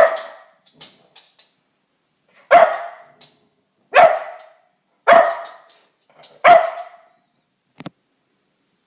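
Dog barking loudly, five single barks spaced one to two and a half seconds apart.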